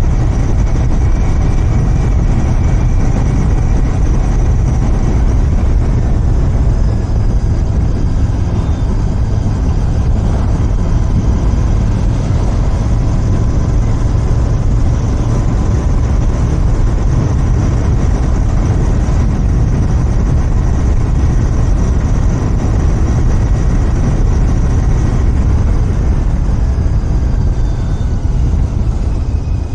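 Royal Enfield Continental GT 650's parallel-twin engine running through its stock exhaust while being ridden, a steady low rumble with slight shifts in pitch.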